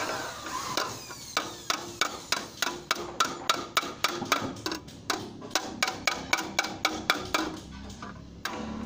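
Ball-peen hammer tapping thin sheet metal over the edge of a brick step to crease a fold, a steady run of sharp taps about three a second, with the sheet rustling as it is handled before the hammering starts.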